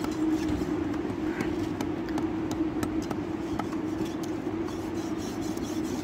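A steady low hum runs throughout, with scattered light clicks and scrapes from a knife working a parrotfish on a wooden chopping block as it is filleted.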